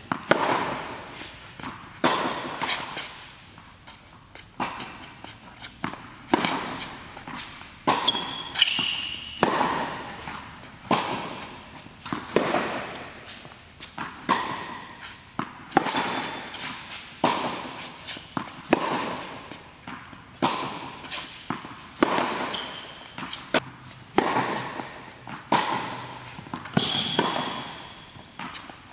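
Tennis rally: racquet strikes and ball bounces on a hard court, a sharp hit about every second or so, echoing in a large indoor hall, with a few short high squeaks.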